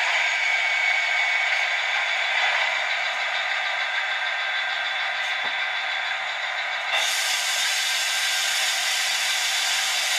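Model Class 57 diesel locomotive's sound unit playing an idling engine through a small onboard speaker, thin with no low end. About seven seconds in, a steady hiss joins.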